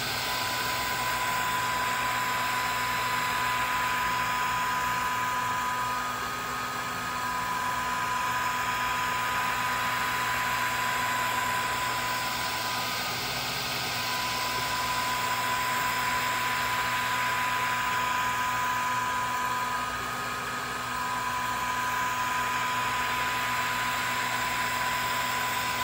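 Swiitol 18 W diode laser engraver running a job: a steady rush of airflow from the laser head with a high whine from the gantry's motors that drops out briefly about every seven seconds, over a low hum.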